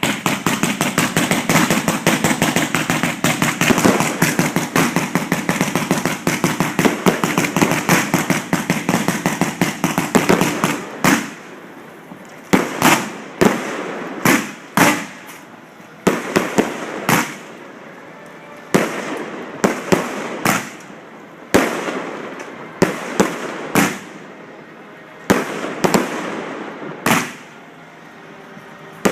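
Fireworks at close range: a dense, rapid string of bangs for about the first eleven seconds, then single loud bangs about a second apart.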